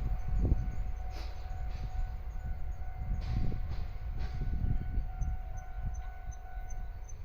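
DE10 diesel-hydraulic locomotive rolling past with a low rumble, its wheels clacking over rail joints a few times, and a steady high tone that cuts off near the end.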